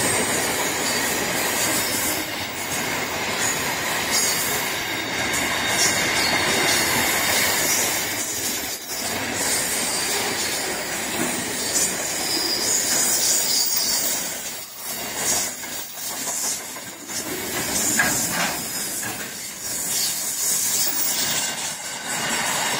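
Container freight train passing close by at speed: steady loud rolling noise of steel wheels on the rails and wagons rattling, with a high hiss. The noise dips briefly a few times past the middle.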